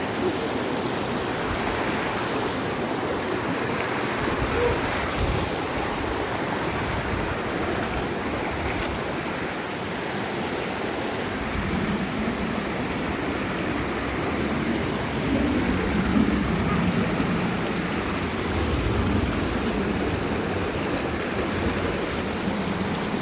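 Mountain valley stream rushing steadily over rocks, with a deeper rumble coming up in the low end about halfway through.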